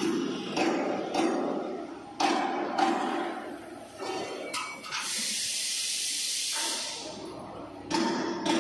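Compressed air hissing steadily for about two seconds, starting about five seconds in, plausibly air vented from the trailer's air brake chambers. Around it runs a series of sharp knocks roughly every half second.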